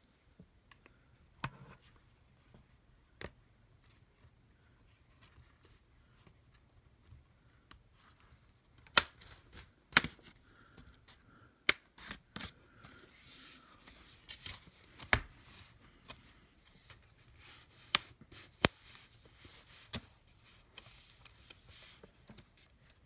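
Plastic snap clips of a Lenovo IdeaPad Flex 5 Chromebook's bottom case clicking and snapping as the cover is pried off by hand along the seam. The sharp clicks come irregularly, sparse at first and louder and more frequent in the second half, with faint scraping of fingers on the case between them.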